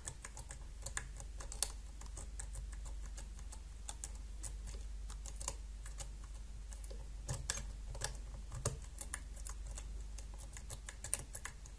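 Steel lock-picking rake working in the keyway of a brass Kale 164 BNE dimple-key cylinder: a faint, quick, irregular run of small metallic clicks as the rake scrapes over the pins to set as many as possible under tension. A low steady hum lies underneath.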